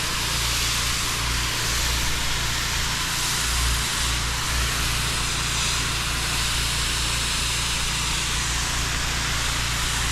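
Pressure washer running: a steady engine hum under an even hiss of water spray.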